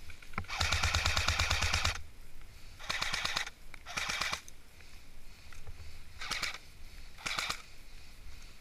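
Airsoft rifle firing five bursts of rapid full-auto shots, the first and longest about a second and a half, the others shorter.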